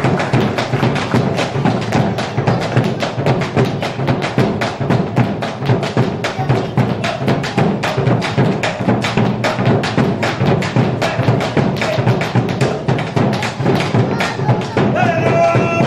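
Argentine folk music with a fast, even percussive beat of knocks and thumps running throughout.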